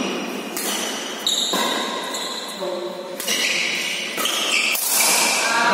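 Badminton doubles rally: rackets striking the shuttlecock several times, with players' footsteps on the court. A voice in the background holds long notes that change pitch every second or so.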